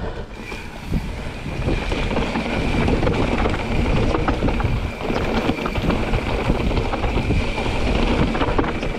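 Mountain bike rolling down a rough dirt singletrack: wind buffeting the rider's camera microphone, tyres crunching over dirt and stones, and the bike rattling and knocking over bumps. A faint steady high whine runs underneath.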